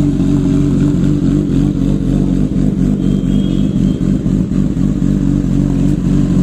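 Honda CBR1000RR Fireblade's inline-four engine idling steadily through an aftermarket Akrapovič exhaust.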